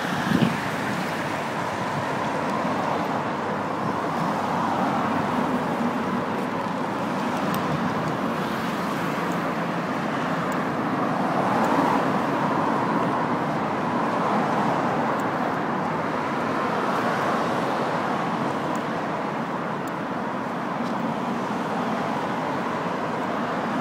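City road traffic: cars driving past one after another, a steady rush of engine and tyre noise that swells and fades gently as each one goes by.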